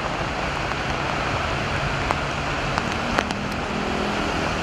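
Steady hiss of a heavy rain shower mixed with the low rumble of slow traffic on a wet highway, with a few sharp raindrop ticks about two to three seconds in.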